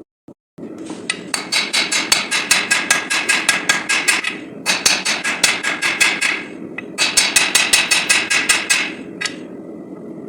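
Hand hammer forging steel bar stock on an anvil: three runs of quick ringing blows, about six a second, with short pauses between, then one last blow near the end.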